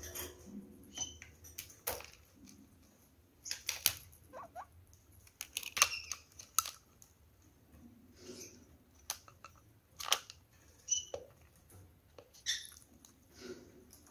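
Kakariki parakeets pecking grated carrot from a plastic dish: irregular sharp clicks and taps, loudest about four and six seconds in, with quiet gaps between.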